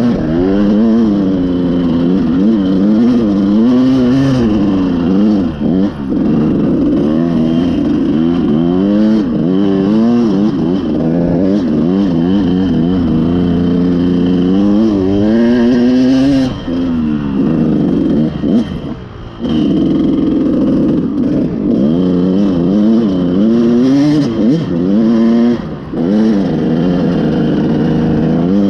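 Dirt bike engine being ridden hard, its revs rising and falling over and over about once a second as the throttle is worked, with a short lull about two-thirds through.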